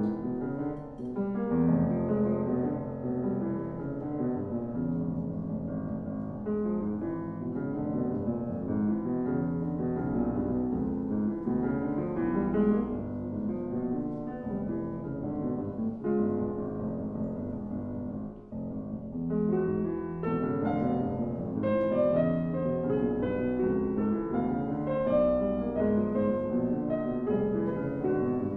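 Piano playing a dense, continuous passage in a live chamber-music performance; about 19 s in, brighter high notes enter over the lower chords.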